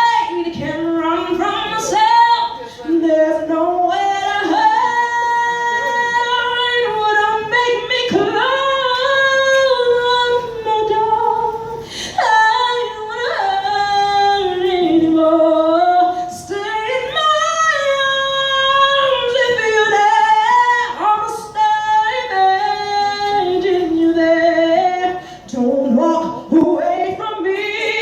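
A woman singing high, long-held notes and sliding melismatic runs, with little accompaniment.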